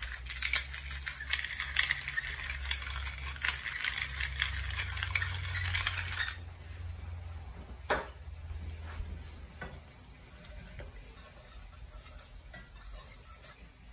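Hand pepper mill grinding black pepper over gravy, a rapid crunching rattle that goes on for about six seconds. A single knock follows about two seconds after it stops, then a wire whisk stirs faintly in the cast iron skillet near the end.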